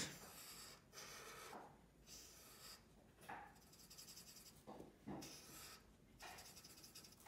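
Felt-tip Sharpie marker drawing on paper: a series of short, faint scratchy strokes, about one a second.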